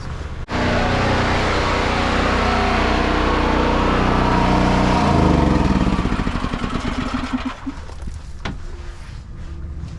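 An engine running loudly at a steady speed, then winding down with its pitch falling and fading over a couple of seconds.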